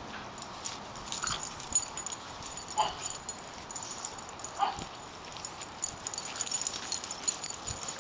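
French bulldogs playing over a rubber ball, giving three short pitched vocal sounds spread over the first five seconds, amid small scuffling clicks.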